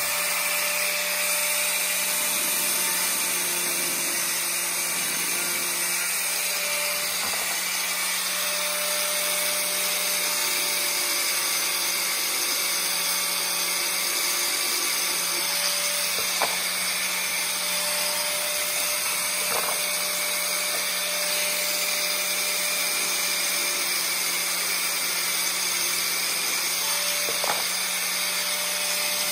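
Corded angle grinder running steadily at a constant pitch as its disc grinds away the edge of a plastic bumper cowl. A few faint ticks come through about halfway and near the end.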